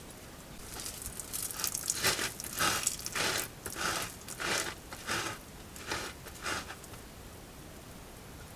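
Mountain lion scraping the dirt with its hind feet: about ten scratchy strokes, roughly one every half second, stopping a couple of seconds before the end.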